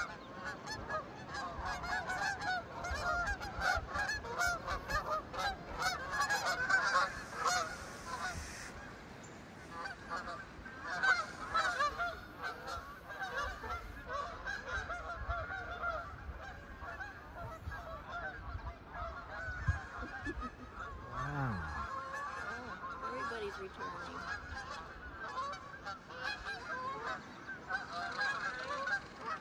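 A flock of Canada geese flying over in formation, many birds honking at once in a dense, overlapping chorus that runs on without a break.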